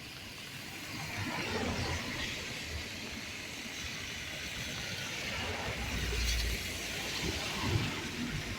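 Steady rain hiss with cars passing on a wet street; a vehicle's low rumble swells up about six seconds in.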